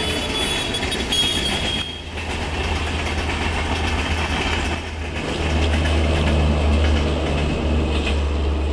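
LHB passenger coaches rolling past on the rails with steady wheel-on-rail noise. From about halfway a steady low hum builds as the rear luggage-and-generator car, with its diesel generator set, comes by.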